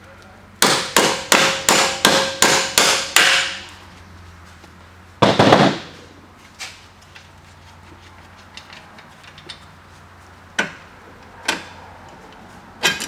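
Hammer knocking a splined strut-to-knuckle bolt out of a 2016 Camaro's front suspension: about eight quick, ringing metal strikes, roughly three a second. About five seconds in there is a short, louder clatter, and a few light knocks follow near the end.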